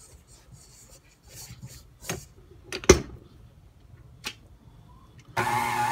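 A few clicks and a sharp knock about three seconds in as the dough is handled and the stand mixer's head is lowered into the bowl. Near the end the stand mixer's motor starts and runs steadily, kneading the challah dough with its dough hook.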